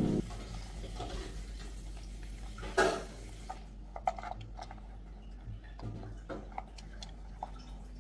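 Handling a cardboard box of plastic-sealed gold-bar cards: a papery scrape about three seconds in, then scattered light clicks as the stacked cards shift and tip out of the box.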